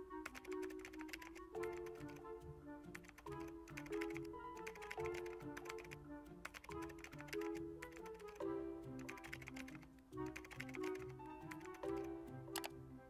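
Fast, continuous typing on a laptop keyboard, the keys clicking in quick runs. Background music with a melody and bass line plays underneath.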